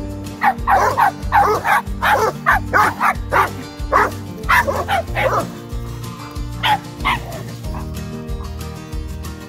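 A dog barking in a rapid series of short barks for about five seconds, then two more barks a little later, over background music with a steady beat.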